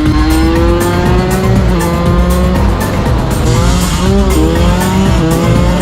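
125 cc two-stroke enduro motorcycle engine revving under acceleration. Its pitch climbs, then falls suddenly about four seconds in at a gear change, and climbs again.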